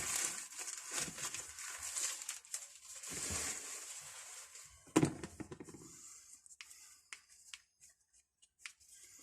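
Rustling and handling noise as hand tools are lifted out of their packaging, with a sharp knock about five seconds in and a few light clicks after it.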